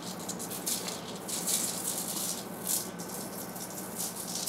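Garlic salt rattling in a plastic shaker bottle, shaken in a series of quick shakes as the seasoning is sprinkled onto aluminium foil sheets.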